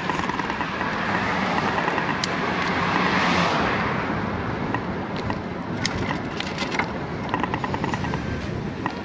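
Road traffic heard from a moving bicycle: a vehicle passes, its noise swelling to a peak about three seconds in and fading away, over steady wind and road noise.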